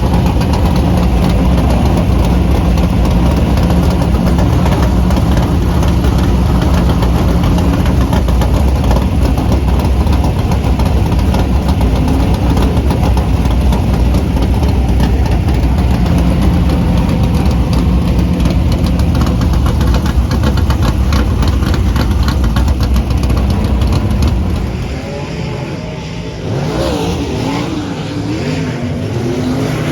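Race car engine at a dirt track, running loud and steady with a rapid, heavy firing beat. About 25 seconds in it drops away, and quieter engine sound rises and falls in pitch as cars rev.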